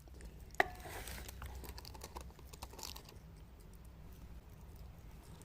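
An old cat eating boiled egg: quick, wet clicks and smacks of chewing and licking, busiest in the first three seconds, with one sharp click about half a second in.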